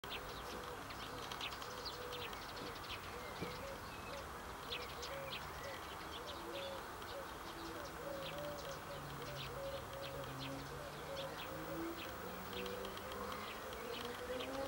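Outdoor field ambience: small birds chirping in scattered short high notes over a steady wavering buzz, with a low hum that grows louder near the end.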